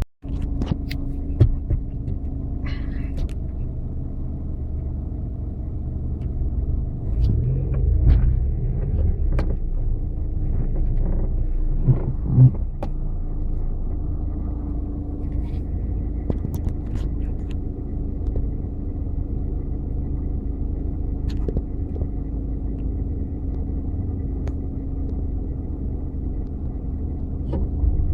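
Off-road 4x4 vehicle running with a steady low rumble, with a few short knocks and clunks, the loudest about halfway through.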